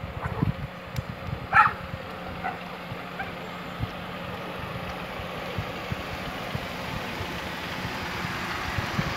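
Small car engine idling with a steady hum that grows a little louder toward the end, over scattered low thumps. A short animal call sounds about one and a half seconds in.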